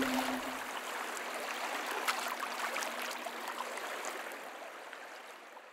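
A steady rushing noise, like running water, with scattered small crackles. It fades slowly and drops to silence at the very end. A low held note from the soundtrack music dies away in the first half-second.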